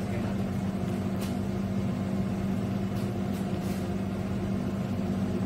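A steady low machine hum, with a few faint clicks.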